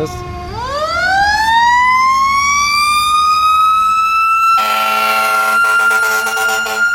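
Emergency vehicle siren winding up from a low growl to a high, steady wail. About four and a half seconds in, a horn blasts over it for about two seconds.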